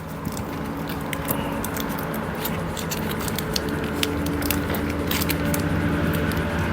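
A motor vehicle engine running steadily, growing slowly louder, with scattered small clicks and ticks of handling over it.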